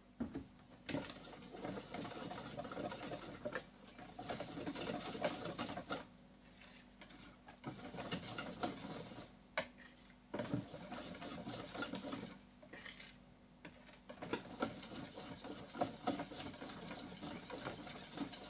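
A spoon stirring thick blended-bean moi moi batter, with oil, garlic and pepper just added, in a plastic bowl. The stirring comes in four spells of a few seconds each, with short pauses between.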